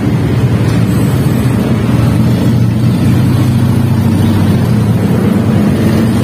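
Motorcycle engine running steadily at low speed, a low drone with no sharp changes.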